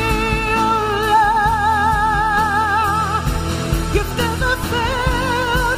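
Live worship music: a singer holds long notes with vibrato over a steady low band accompaniment.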